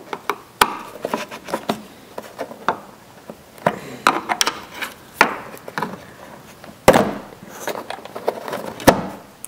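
Flat blade screwdriver prying up the centre pin of a plastic push-in retainer clip, then the clip being worked loose: an irregular scatter of clicks and taps of metal tool on plastic, with the loudest snaps about seven and nine seconds in.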